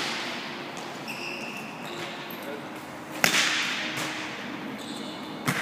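Volleyball impacts echoing in a large gym hall: two sharp smacks of the ball, about three seconds in and near the end, each with a ringing tail. A short high squeak comes about a second in.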